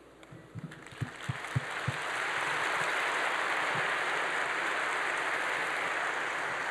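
Large theatre audience applauding: a few scattered claps about half a second in swell into full, steady applause by about two seconds.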